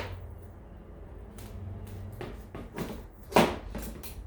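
Metal detector parts clicking and knocking as the control housing is fitted and locked onto the shaft, with a few light clicks and one sharper click a little past three seconds in.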